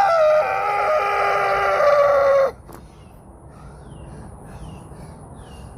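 A rooster crowing: one long crow in several steps of pitch that stops about two and a half seconds in. Short, falling bird chirps then repeat about twice a second.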